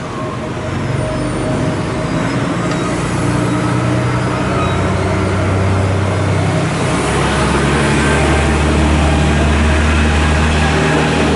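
JR East E493 series electric traction unit starting away from the platform while hauling a locomotive, its low motor hum shifting in pitch in steps and growing louder as it draws alongside.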